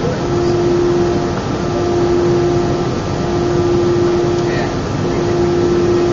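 Airbus A319 jet engines running, heard inside the passenger cabin as a loud, steady rush of noise with a steady whine running through it.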